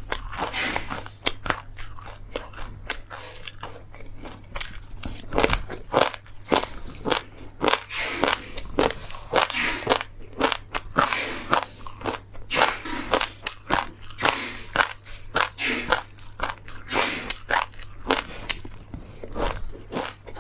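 Close-miked chewing of mouthfuls of dry flax and perilla seeds: rapid, irregular crisp crunches, several a second.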